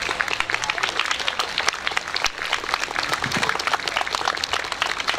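A crowd applauding, many hands clapping together.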